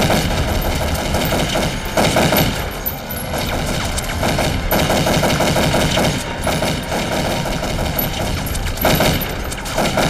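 Automatic gunfire from several assault rifles, in rapid bursts that come again and again.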